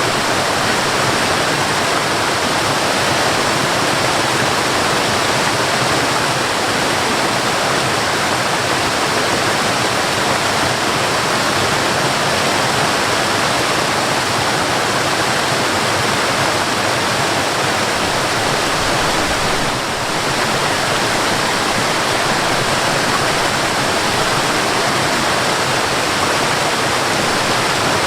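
Waterfall rushing steadily, an even wash of falling water with a slight, brief dip in level about twenty seconds in.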